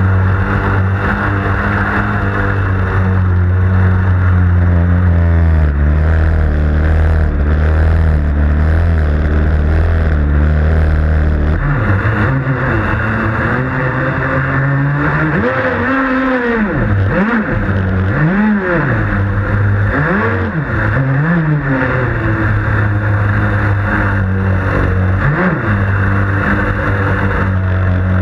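Motor of a Blackjack 55 radio-controlled catamaran, heard from the boat's own deck, running at a steady pitch for about the first twelve seconds. After that its pitch drops and rises again several times as the throttle is eased and opened, with water rushing past the hull.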